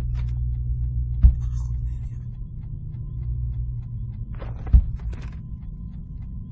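A steady low rumble with two sharp knocks, one about a second in and a louder one near five seconds in, and a few fainter clicks between them.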